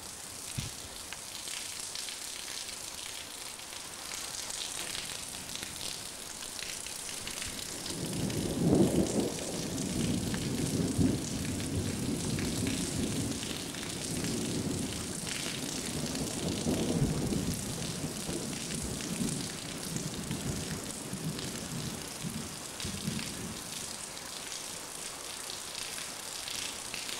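Steady rain hiss. About eight seconds in, a long peal of thunder rolls in, with several louder swells over some fifteen seconds before it dies away.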